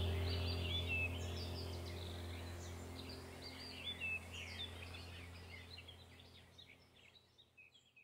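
Bird chirps over a steady low hum, the whole sound fading away steadily toward the end.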